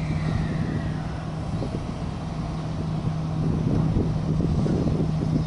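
Steady hum from a JR West 283 Series limited-express electric train standing at the platform, its onboard equipment running while stopped, over a low rumbling noise.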